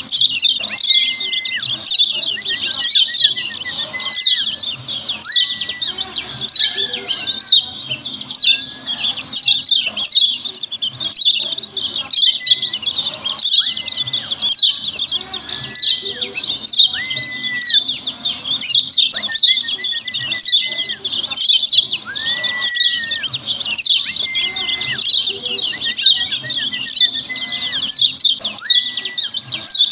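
Kecial kuning (yellow white-eye) giving its noisy 'ciak ciak' call: rapid high chirps without a break, with a short, clear, lower whistle about every second or so. This is the call played as a lure to set other kecial answering.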